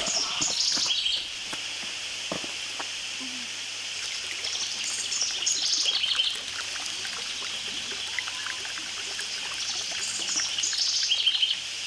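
Water pouring steadily from a fountain spout into a stone basin, a continuous trickling splash. A songbird sings short chirping phrases over it three times, about five seconds apart; these are the loudest sounds.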